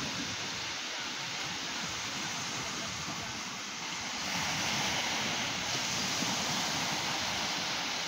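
Ocean surf breaking and washing onto a beach, a steady rush that swells about halfway through as a wave comes in.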